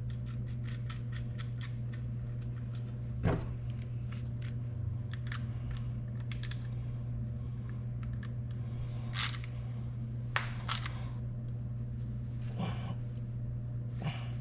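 Light metallic clicks and taps of hand tools and small metal parts being handled, with a louder knock about three seconds in and a few sharper clicks around nine to eleven seconds, over a steady low hum.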